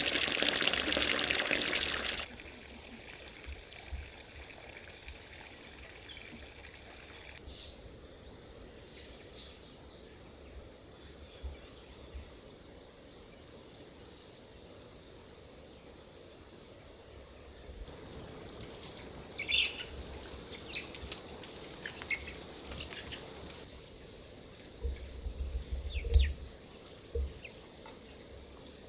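Steady high-pitched drone of a jungle insect chorus. For the first two seconds there is the rush of running water, and after the middle come a few short chirps and some low knocks.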